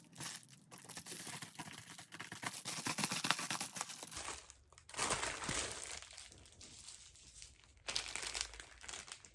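Packaging being torn open and handled, crinkling and crackling in bursts, with the busiest stretch in the first four seconds and another flurry near the end.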